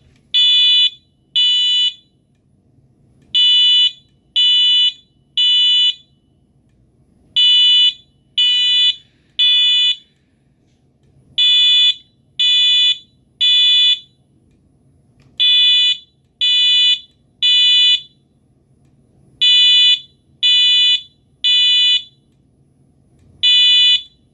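Wheelock MT multi-tone fire alarm horn-strobe sounding its code 3 tone: groups of three short, shrill, steady-pitched beeps, each group followed by a pause of about a second and a half, repeating every four seconds or so. This is the temporal-three evacuation pattern.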